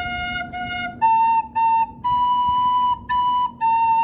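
A flute playing a phrase of the second voice of a melody, one note at a time: F, then A, then B-flat sounded twice, and back down to a long held A.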